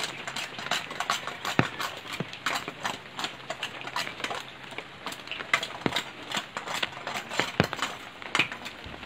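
Dry twigs and branches snapping and cracking as they are broken and pulled by hand, irregular sharp cracks with a few louder snaps, over rustling leaves.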